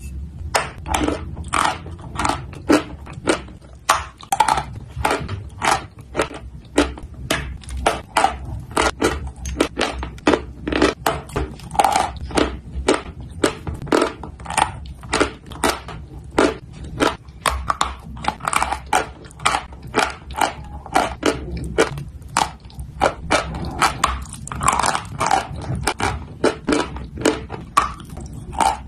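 A block of dry white chalk being bitten and chewed close to the microphone: rapid, dry crunches, about two to three a second, continuing without pause.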